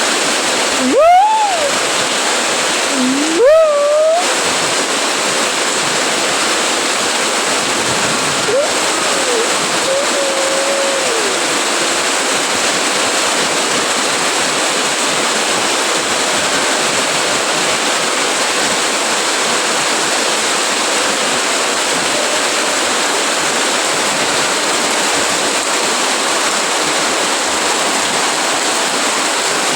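Heavy rain falling steadily, a dense even hiss. About a second in and again about three seconds in there are two short rising calls, and a fainter wavering call comes around eight to eleven seconds in.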